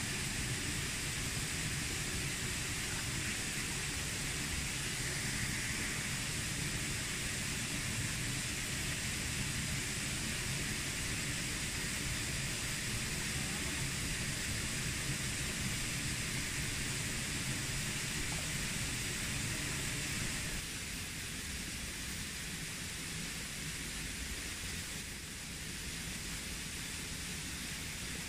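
Steady outdoor ambience: a continuous even hiss with a low rumble underneath, which drops a little quieter about twenty seconds in.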